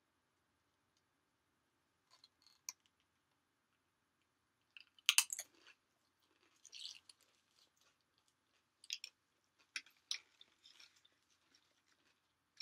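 Close-miked chewing of a Chipotle burrito with tortilla chips in it: irregular clusters of wet clicks and crunches, the loudest about five seconds in.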